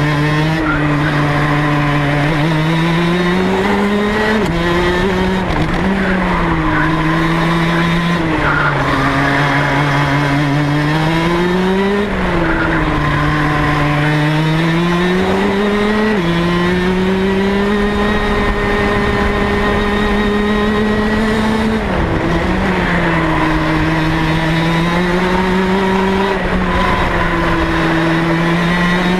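Rotax DD2 kart's 125cc two-stroke engine running at racing speed, its pitch climbing and falling back repeatedly, with a few sudden drops.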